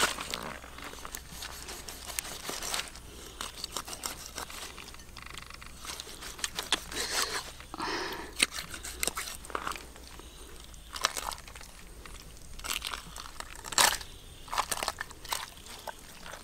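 Knife cutting open the belly of a large catfish and hands pulling out its fat and innards: irregular short clicks and scrapes, some louder around 8 and 14 seconds in.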